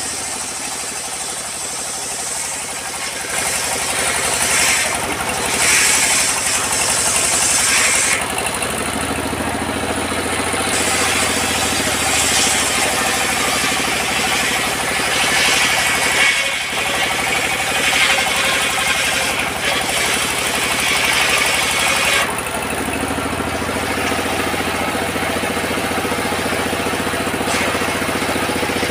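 Old diesel engine running steadily as it drives a large circular saw bench. The blade cuts lengthwise through a teak log, and the higher-pitched sawing noise comes and goes several times over the engine's steady note.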